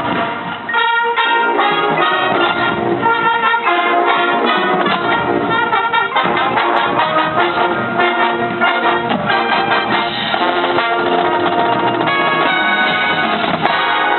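High school marching band playing, with its brass section (trumpets and trombones) leading in loud, full chords and moving lines.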